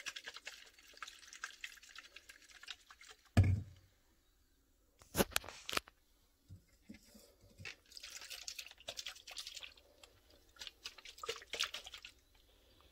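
Carbonated, flavoured water sloshing and fizzing inside a plastic SodaStream bottle as it is shaken by hand to mix in the flavour drops. A heavy thump about three seconds in, then two sharp knocks, with more stretches of fizzing and handling later on.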